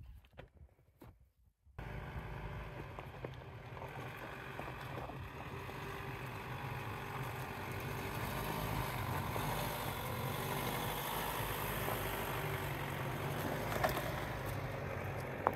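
A 4x4 driving: steady engine, tyre and wind noise with a low rumble. It starts abruptly about two seconds in, after a few faint clicks, and there is a sharp click near the end.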